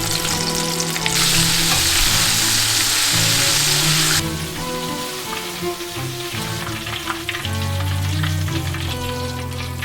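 Food sizzling in hot oil in a pan, with a loud burst of sizzle from about a second in that drops away suddenly about three seconds later, then quieter frying with small crackles. Background music plays throughout.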